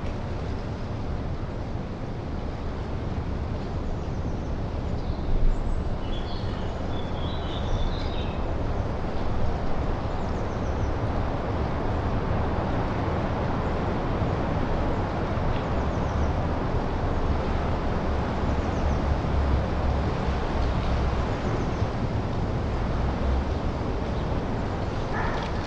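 Steady wind blowing through pine trees and brush, with a low rumble underneath. A small bird chirps a few times from about six to eight seconds in.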